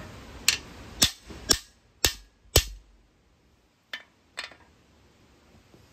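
Claw hammer striking the end of a cam bearing installer's driver bar, driving a cam bearing into a Ford 302 small-block's cam bore. Five sharp metallic strikes about half a second apart, then two lighter taps about a second later.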